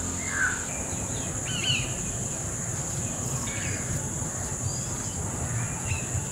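Steady high-pitched drone of insects, with a few short bird chirps, most of them in the first two seconds.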